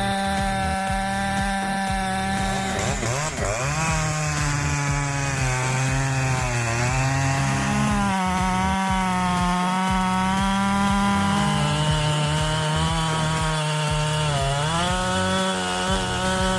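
Husqvarna 3120XP two-stroke chainsaw running at full throttle and cutting wood. Its high engine note sags in pitch as the chain loads up in the cut, about three seconds in, around seven seconds and again near the end, then recovers.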